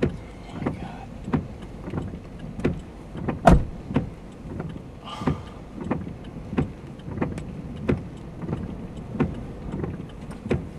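Inside a car, a steady repeating knock comes about three times every two seconds over the low rumble of the vehicle, with one louder knock about three and a half seconds in.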